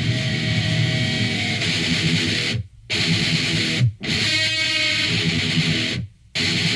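Rock music led by electric guitar. The music cuts out abruptly for a moment three times.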